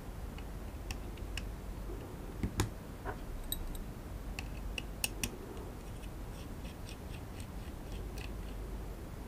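Light clicks and ticks of a precision screwdriver and a pointed tool on the screws, bracket and ribbon-cable connector of an opened DJI Mavic Air remote controller. There is a louder knock about two and a half seconds in, and a run of light ticks, about four a second, from about six to eight seconds in.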